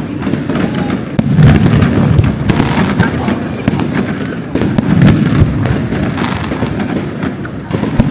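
Fireworks display: a steady run of deep booming shell bursts, the loudest about one and a half seconds in and around five seconds in, with crackling and popping between them.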